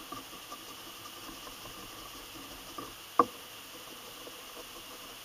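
Wool dauber dabbing and rubbing black oil dye onto a vegetable-tanned leather sheath: faint, irregular scuffs and pats, with one sharp knock about three seconds in.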